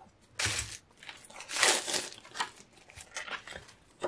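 Plastic wrapping being torn and crinkled off a paper pad. There are two main rustling bursts, about half a second in and around a second and a half to two seconds in, followed by smaller crinkles.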